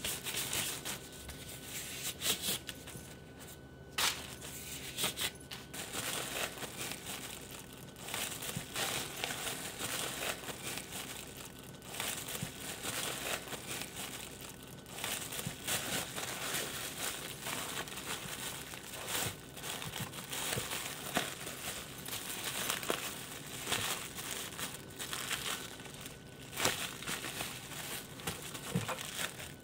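Thin clear plastic bag crinkling and rustling as hands squeeze it and twist it closed around a packed mass of cardboard pieces, with irregular crackles and sharp snaps of the plastic.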